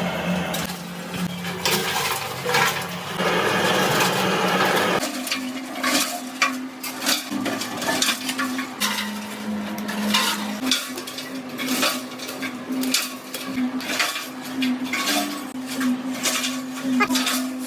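Repeated clattering and clinking of small hard objects over a steady machine hum; the sound changes abruptly about five seconds in.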